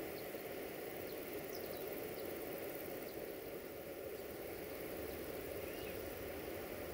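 Outdoor ambience: a steady, even background noise with faint, short bird chirps scattered over it.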